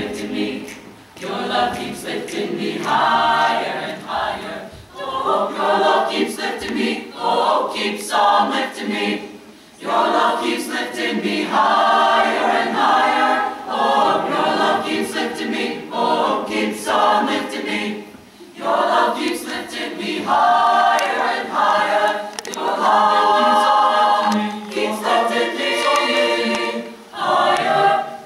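High school choir singing, in phrases with brief breaks between them.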